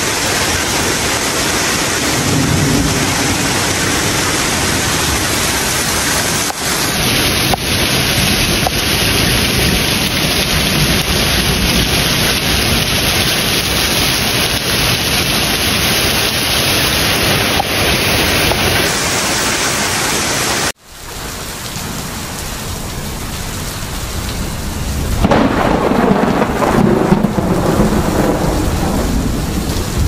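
Heavy rain pouring steadily. About two-thirds through the sound cuts off sharply and returns quieter. A low rumble of thunder swells under the rain in the last few seconds.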